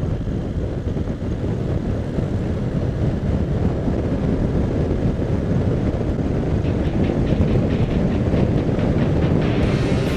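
Wind rush and engine and road noise of a motorcycle riding at road speed, picked up by a camera on the bike: a dense, steady roar with no clear engine note. It turns hissier and rougher in the last few seconds.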